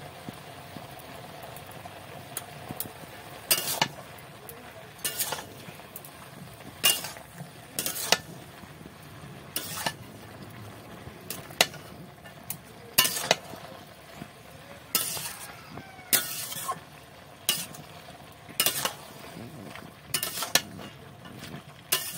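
Long metal spatula stirring chopped Malabar spinach, potato and pumpkin in a metal pan, with irregular scrapes and clinks against the pan about every second or two over a steady low sizzle.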